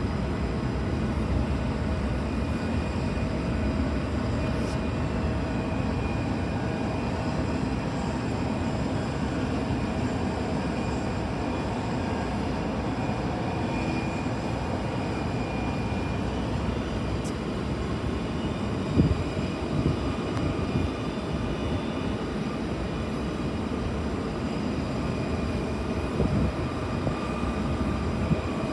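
Steady airport apron noise, heard from inside the terminal through the window glass: a continuous low rumble of jet aircraft engines and ground equipment, with faint steady whining tones. A few brief knocks come about two-thirds of the way in and again near the end.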